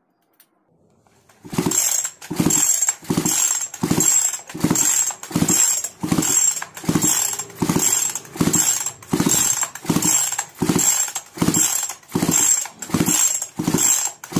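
A Kisan Kraft two-stroke chainsaw's recoil starter is pulled over and over in quick even strokes, about two a second, starting about a second and a half in. The engine turns over without firing, because the spark plug is out and held against the cylinder to check for spark.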